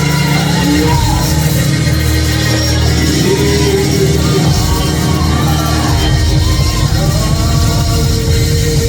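A church band playing gospel music, with a heavy bass and a melody line gliding up and down.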